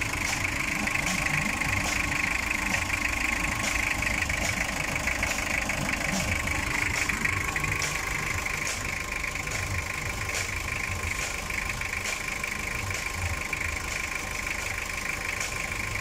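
Toyota 2L-series diesel engine idling steadily after a top overhaul, in which its overheated, cracked cylinder head was replaced.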